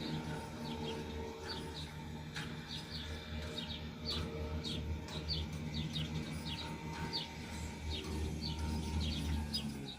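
Small songbirds chirping, many short repeated chirps, over a steady low engine drone from lawn mowing in the background.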